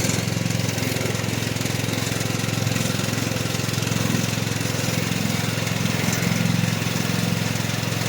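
Small throttle-controlled engine of a remote-control zero-turn lawn mower, running steadily.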